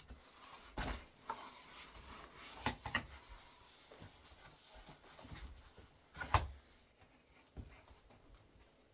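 Folding fishing chair being handled as its legs are unfolded and its feet set: scattered clicks, knocks and rubbing of its parts, with the loudest knock about six seconds in.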